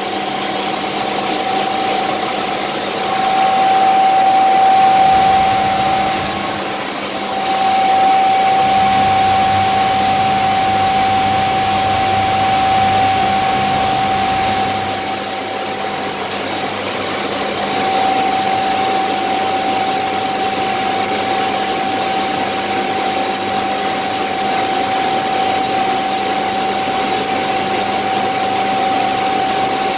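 A ChS4T Škoda-built AC passenger electric locomotive heard from inside its rear, non-working cab while it accelerates slowly. A steady high whine from its electrical equipment runs over an even running noise, and the whine drops out briefly twice in the first several seconds.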